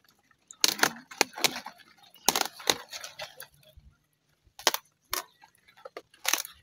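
Kale (sukuma wiki) leaves being snapped off their stalks by hand: a series of short, crisp snaps, several of them, with leafy crackle in between.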